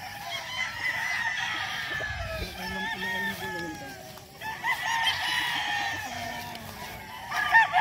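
Many gamecocks crowing in overlapping calls, one rooster taking up after another. There is a brief lull partway through and louder crowing near the end.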